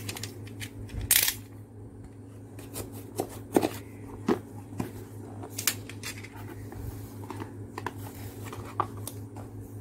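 Cardboard box being handled and opened: scattered taps, clicks and scraping rustles of cardboard, the loudest a scraping rustle about a second in, over a steady low hum.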